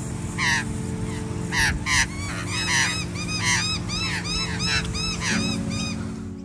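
A bird calling in a loud series of harsh, arched notes that speed up to about four or five a second. Under it is background music with held chords.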